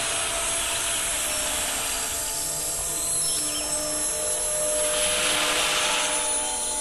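High-speed rotary-tool spindle of a hobby CNC router running and milling a sheet: a steady high whine over a hiss of cutting, which swells about five seconds in.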